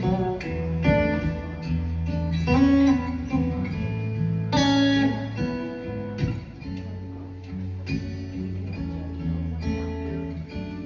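Solo acoustic guitar played live: a run of plucked notes over held low bass notes.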